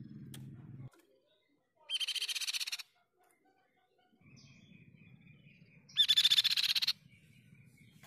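Crescent-chested babbler (tepus pipi perak) giving two fast, rattling trills about a second long each: one about two seconds in, and a louder one about six seconds in.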